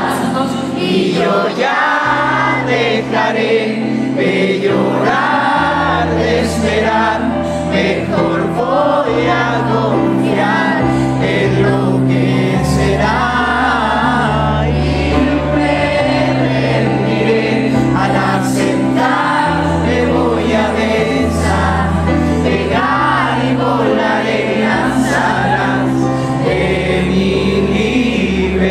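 Male singer performing a pop ballad live with band accompaniment, his sung lines over low sustained chords that change every couple of seconds.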